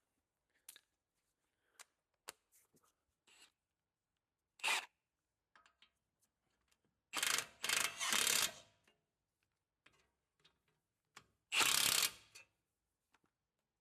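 Tools and car parts being handled during suspension work: scattered light clicks and knocks, with three short scraping or rustling bursts, the longest about a second and a half near the middle.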